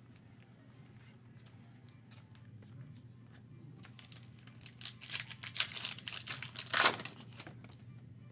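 A sports card pack's wrapper crinkling and tearing as it is opened. Faint clicks at first, then a run of crackling from about halfway through, loudest shortly before the end.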